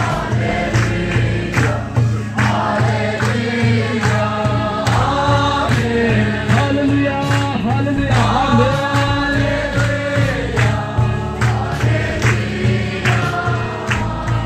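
A group of voices singing a gospel song together, backed by a band with a steady pulsing bass beat and drum hits.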